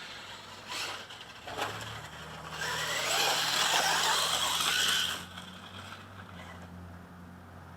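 OFNA LX1 1/8-scale RC buggy, converted to electric, driving by: its electric motor whines with rising pitch over the noise of tyres on the dirt track. It is loudest from about three to five seconds in.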